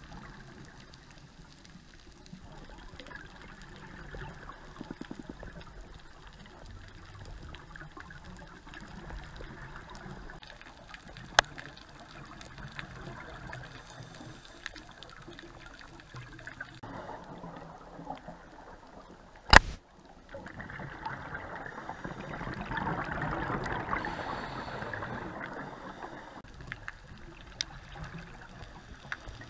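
Underwater sound through a dive camera's housing: a steady low bubbling wash, with a sharp click about two-thirds of the way in. Right after the click comes a louder stretch of a scuba diver's exhaled bubbles that lasts several seconds.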